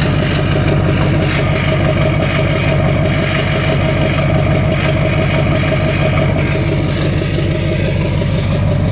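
LMM Duramax 6.6 L V8 turbo-diesel idling steadily with an abnormal noise. The owner traces the noise to cylinder 8, which still shows a bad balance rate after a new injector, and suspects valve lash, a broken rocker arm or a bent pushrod.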